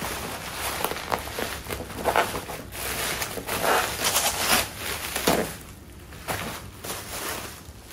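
Packaging being handled and unpacked: irregular rustling and crinkling with light knocks, quieter for the last couple of seconds.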